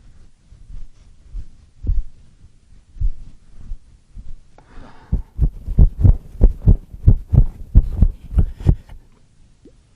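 Low thuds from a person dancing: a few spaced thuds at first, then a quick run of about three a second for roughly four seconds, which stops near the end.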